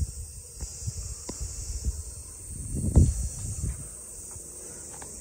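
Steady high chirring of insects. Over it come irregular low thuds and a short rumble in the first few seconds, loudest about three seconds in, then only the insects.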